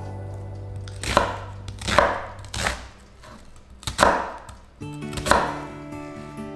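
A chef's knife slicing through half an onion on a wooden end-grain cutting board. Five crisp, crunching cuts come at uneven intervals of about a second, each ending with a knock of the blade on the wood.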